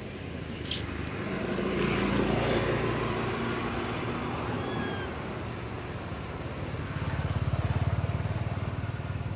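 Motor vehicles passing on the road: one swells and fades about two seconds in, and a second, with a low engine throb, builds and peaks near the end.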